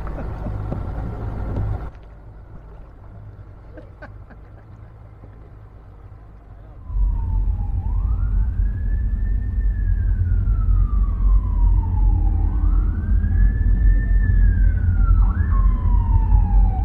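Emergency vehicle siren wailing, its pitch rising and falling slowly, starting about seven seconds in, with a short quick yelp in the middle. A loud low rumble runs under it, and is also there for the first two seconds.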